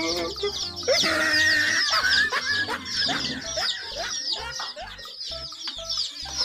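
A flock of young domestic chicks peeping without a break: a dense chorus of short, high, downward-sliding cheeps, several a second.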